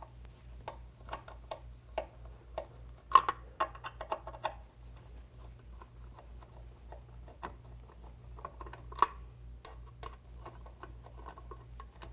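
Irregular light clicks and taps of a hand tool working the bolts on an electric golf scooter's control box, in small bunches.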